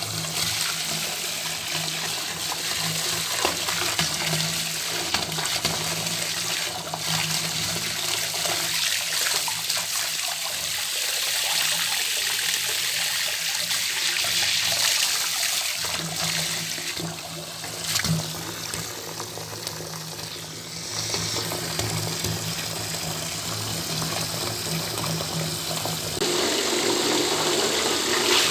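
Water running from an open bathtub tap, a steady rushing splash into the tub that grows a little louder near the end.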